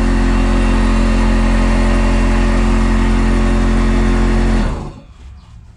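Workshop air compressor running with a steady, loud motor hum, then cutting out about three-quarters of the way through and winding down quickly.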